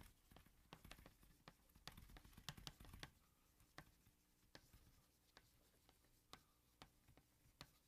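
Faint taps and strokes of writing on a board, quick and close together at first and then sparser, a sharp tap every half second or so.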